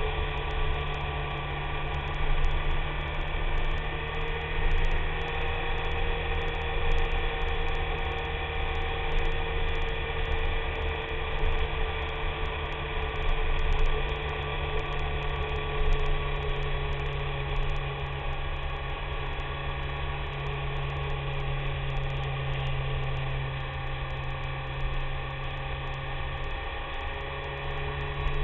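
BMW K1300S inline-four motorcycle engine running steadily at cruising speed, with a constant hum and a steady rush of wind noise on the microphone.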